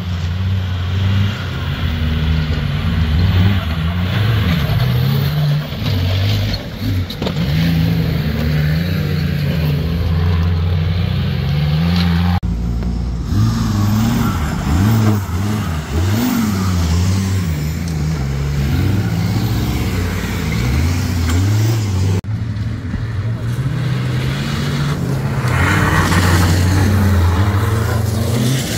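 Engine of a modified GAZ-69 4x4 off-road competition vehicle revving and labouring through mud, its pitch repeatedly rising and falling with throttle. The sound changes abruptly twice, about 12 and 22 seconds in.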